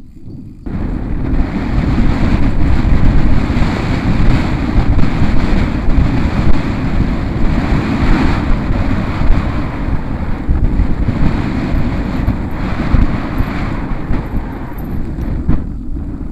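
Wind rushing over the camera's microphone as a mountain bike descends a dirt forest trail at speed, mixed with the rumble of the tyres and bike over rough ground. It picks up suddenly about half a second in and stays loud and uneven.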